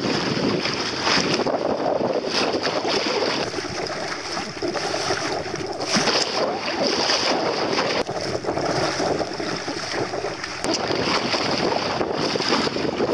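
Wind rushing over the microphone with water splashing along the hull of a small sailboat under way in choppy water.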